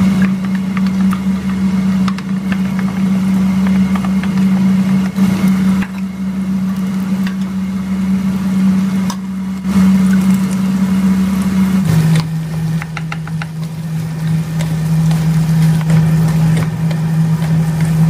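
Eggs and then shredded cabbage and vegetables being stir-fried in a nonstick wok: a wooden spatula scrapes and taps the pan over the hiss of frying. A loud steady low hum runs underneath and drops in pitch about two-thirds of the way through.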